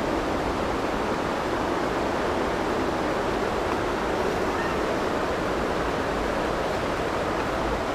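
Steady rush of flowing river water, an even noise without pauses or distinct events.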